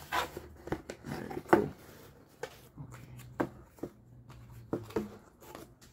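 Hands handling a cardboard knife box: scattered light taps and knocks, the loudest about one and a half seconds in.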